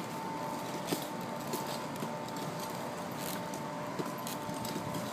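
Occasional light knocks and clinks of climbing gaffs and tool belts on wooden utility poles, over a steady outdoor background with a faint constant hum.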